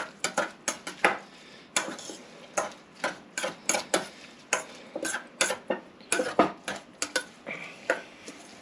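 Utensil clinking and scraping against a mixing bowl as coleslaw is stirred: a run of irregular sharp clicks, a few each second.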